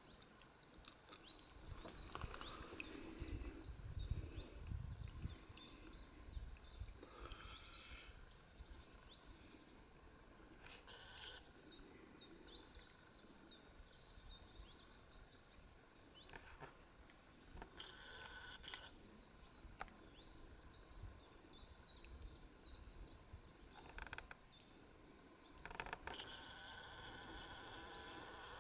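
Faint outdoor ambience with small birds chirping now and then, and a few brief noise bursts, the longest about two seconds near the end.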